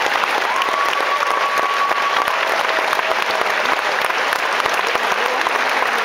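Audience applauding steadily, a dense crackle of many hands clapping, as a sung performance ends.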